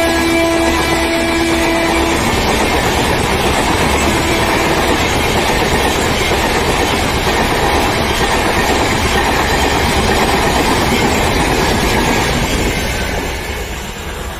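Express passenger train passing at speed close by: a steady rush of coach wheels clattering over the rails, with a train horn sounding for the first two seconds. The noise fades as the last coaches go by near the end.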